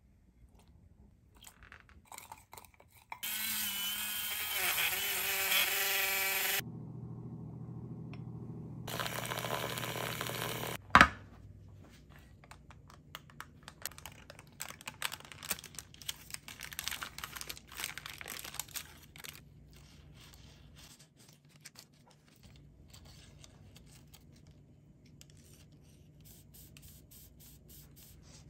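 Hot water poured from an electric kettle into a glass, rising in pitch as it fills. Then a small electric motor whirs for several seconds, and a single sharp knock follows. After that come paper rustling and scraping as parchment is peeled off a loaf of banana bread and a knife saws through it.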